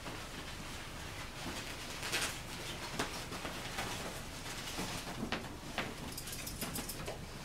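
Puppies scrabbling and playing around a fabric play tunnel: scattered soft taps and rustles, with a quick run of light ticks near the end, over a steady background hiss.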